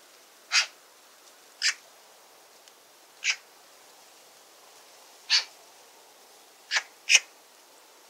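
Eurasian magpie giving single short, harsh calls at uneven intervals, six in all, the last two coming close together near the end.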